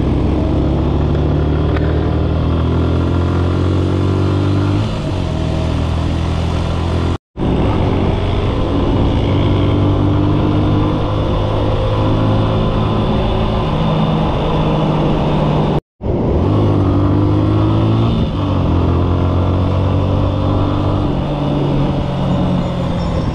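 Motorcycle engine running under the rider while riding, its pitch falling and rising as the throttle opens and closes. The sound cuts out completely twice, briefly, at edits.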